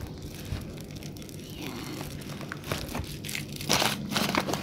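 Paper and a thin plastic bag crinkling and rustling as a parcel is unwrapped by hand, louder near the end.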